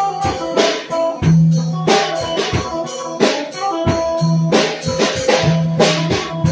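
Loud music with guitar and drums playing a steady beat over held bass notes.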